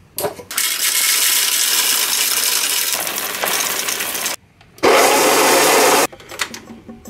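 Coffee beans poured from a bag into the clear plastic hopper of a De'Longhi coffee grinder, rattling in a steady rush for about four seconds. After a short pause, a second loud rush lasts about a second.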